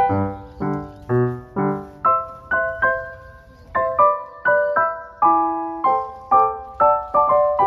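Background music: a light, gentle piano tune, single notes and chords struck at an even pace of about two a second.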